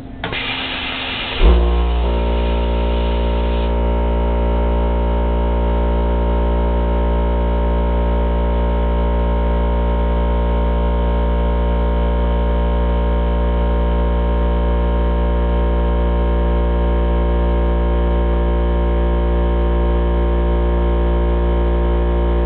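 Handheld plasma cutter cutting titanium: a short rush of air hiss, then about a second and a half in the cutting arc comes on as a loud, steady electrical hum with a buzzing stack of overtones.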